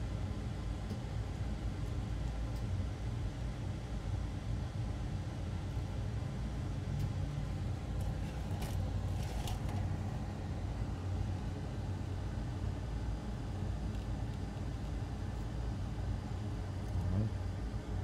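Steady low background rumble, such as a fan or air conditioning, with a few faint light clicks about halfway through.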